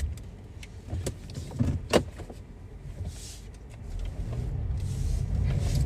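Low rumble inside a parked car, with a few light clicks and a sharper knock about two seconds in; the rumble grows louder over the last two seconds.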